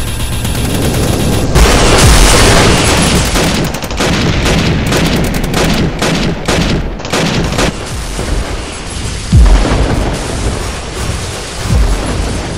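Battle sound effects: a large explosion about a second and a half in, then a rapid run of sharp shots, and deep booms near the end.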